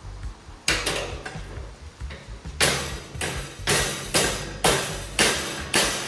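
Hammer blows on the bent metal rail of a G scale model suspension bridge, striking it straight: sharp metal clanks. There are two or three blows about a second in, then a steady run of about two blows a second.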